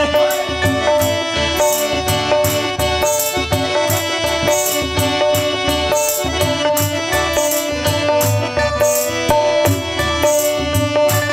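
Instrumental interlude of a Hindi devotional bhajan: a sustained keyboard melody over a steady tabla rhythm, with evenly spaced sharp high percussion strokes on the beat.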